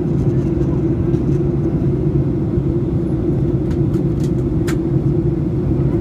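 Airliner cabin noise in cruise: a steady, loud low rumble of engines and airflow. A few faint clicks sound about four to five seconds in.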